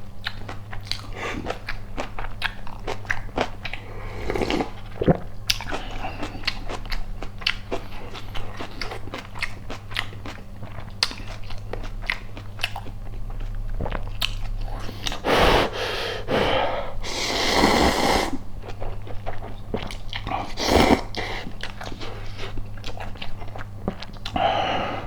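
Close-miked chewing and biting of a person eating a rice burger: a steady run of small wet mouth clicks, with a few longer, louder noisy stretches about two-thirds of the way in.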